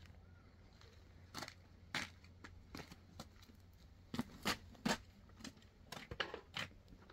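Irregular light clicks and knocks of someone walking in sandals on concrete and handling a plastic basin and kitchenware. Three sharper knocks come close together about four to five seconds in.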